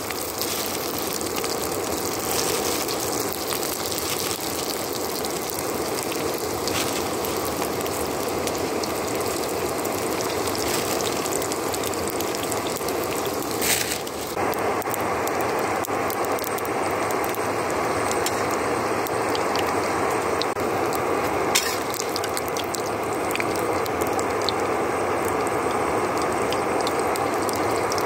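Momos frying in hot oil in a steel kadai: a steady crackling sizzle.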